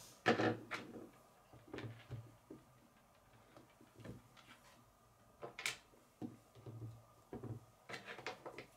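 K'nex plastic rods and connectors being handled and snapped together on a wooden tabletop: scattered clicks and knocks, the loudest about a quarter of a second in, with a quick cluster near the end.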